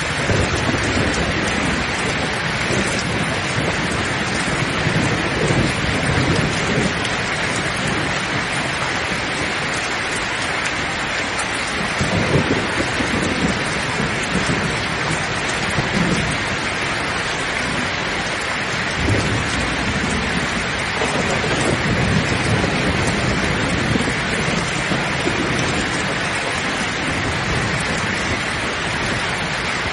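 Steady heavy rain with low rolls of thunder rumbling through it, swelling a little past a third of the way in and again about two-thirds through.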